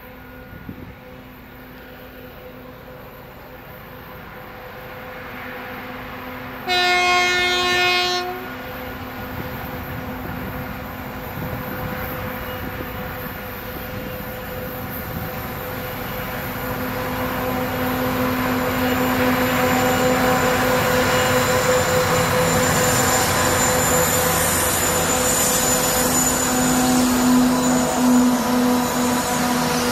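2TE25KM two-section diesel-electric freight locomotive approaching with a steady engine drone that grows louder, and one horn blast of about a second and a half, about seven seconds in. The engine and rolling noise are loudest near the end as the locomotive draws close.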